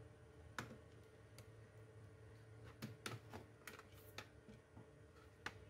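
Faint clicks and taps of an HP 630 laptop's plastic case being handled and turned over, a few spread out and a quick run of them in the middle.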